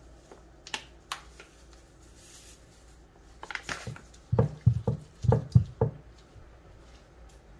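Gloved hands slapping and patting seasoning into a whole red snapper on a wooden cutting board: a quick run of about eight dull, wet thumps past the middle, after a couple of sharp taps from a seasoning shaker early on.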